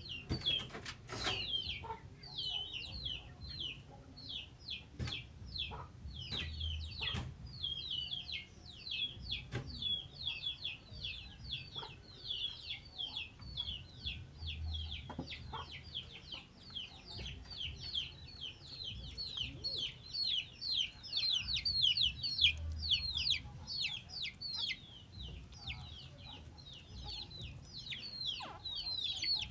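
Rapid high-pitched peeping: a continuous run of short falling peeps, several a second. There are a few faint clicks in the first ten seconds.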